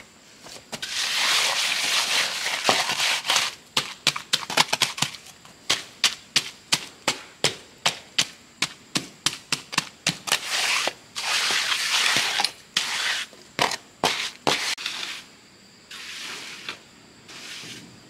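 Hand-tool work: stretches of rough scraping, and between them a quick run of sharp taps or knocks, about three a second. The taps run from a few seconds in to about ten seconds in, and the scraping returns briefly around eleven to thirteen seconds in.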